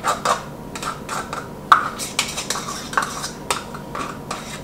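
A spoon scraping and clinking against a measuring cup, scooping soft margarine out into a plastic mixing bowl. It goes as an uneven run of short clicks and scrapes, several a second.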